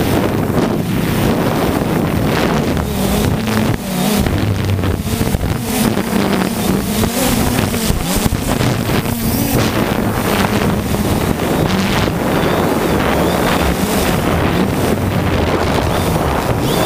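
3DR Solo quadcopter's motors and propellers buzzing steadily, heard through the onboard camera's microphone, the low hum wavering in pitch as the throttle shifts. Wind rushes across the microphone throughout.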